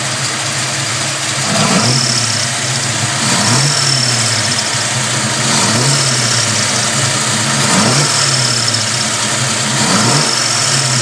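327 small-block Chevy V8 idling, with the throttle blipped about five times, roughly every two seconds. A faint high chirp comes and goes with the revs. The owner traces it to the rear of the passenger-side valve train and does not know its cause.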